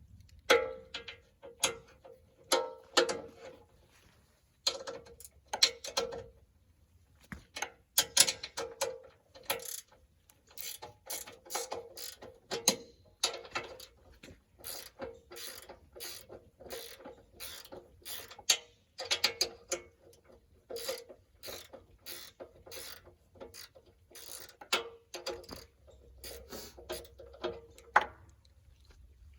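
Ratchet wrench clicking in quick runs as it backs off nylon lock nuts, with short pauses between runs.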